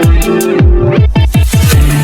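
Electronic dance music in a dubstep / drum-and-bass style: heavy bass drops that swoop downward in pitch, with a quick run of them about a second in, over a steady drum beat and synth chords.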